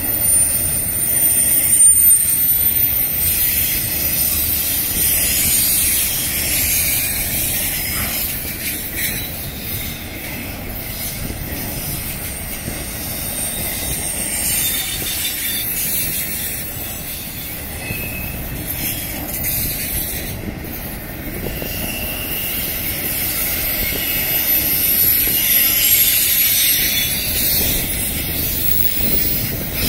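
Intermodal freight train's well cars rolling past: a steady rumble of steel wheels on the rails. High-pitched wheel squeal comes and goes, near the start, again in the middle, and near the end.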